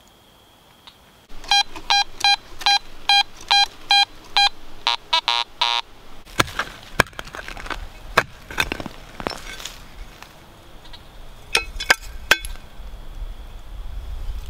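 Metal-detecting pinpointer beeping in short pitched pulses, about three a second, then in a quicker run as it homes in on metal in the soil. This is followed by a hand trowel chopping and scraping into the dirt, and a few more beeps near the end.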